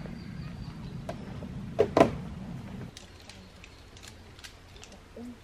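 A NEMO Firefly nylon tent being shaken out to knock the dust off. The fabric flaps and rustles, with two loud snaps close together about two seconds in, then goes quieter with faint rustles as it is lowered.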